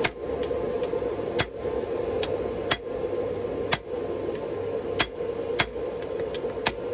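Blacksmith's hand hammer striking a red-hot bar of railroad tie plate steel on an anvil, making a set down: single blows at an uneven pace, about one a second, over a steady hum.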